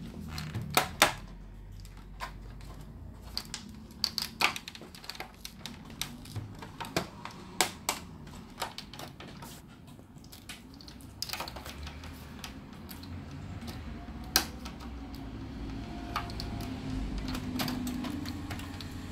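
Plastic back cover of a Lenovo C40-05 all-in-one PC clicking and snapping as it is pried loose from the frame by hand: a scatter of irregular sharp clicks, the loudest about a second in and again about three-quarters of the way through.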